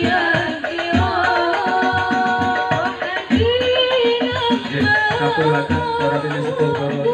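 Sholawat al-Banjari: a group of women singing an Arabic devotional song in unison through microphones, accompanied by terbang frame drums beating a steady rhythm.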